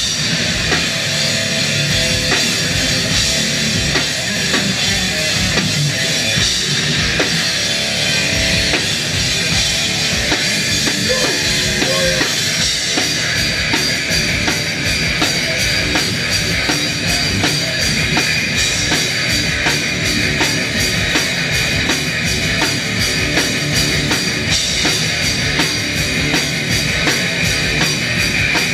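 A hardcore punk band playing live and loud: distorted electric guitar, bass and a drum kit. About halfway through, the drums switch to a fast, steady beat.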